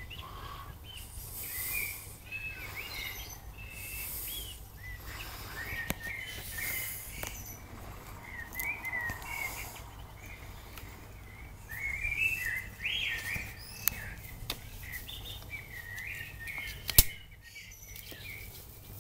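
Songbirds singing in garden trees at dusk: repeated short warbled phrases and chirps, on and off throughout. A single sharp click near the end.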